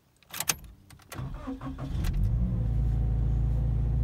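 Subaru BRZ's flat-four boxer engine being started: a few sharp clicks, then the engine turns over and catches about a second in, and it settles into a steady, raised idle around 2,000 rpm.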